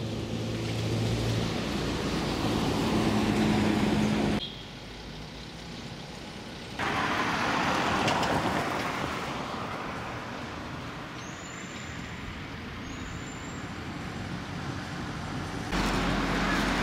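Road traffic noise: a vehicle engine hum and the steady rush of passing cars, with abrupt jumps in level as the sound cuts between segments.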